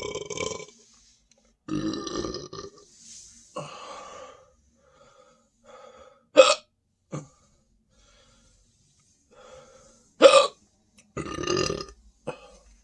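A person burping repeatedly, with several long, drawn-out burps of about a second each, from the gas of the carbonated Sprite they are drinking. Two short, sharp hiccups in between are the loudest sounds.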